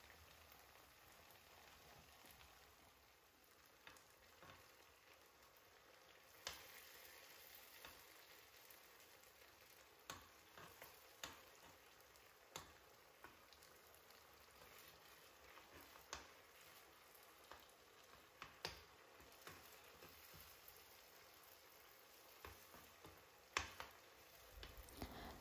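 Faint sizzling of eggs frying in tomato sauce in a frying pan, with scattered soft clicks of a metal spoon knocking and scraping the pan as the eggs are stirred.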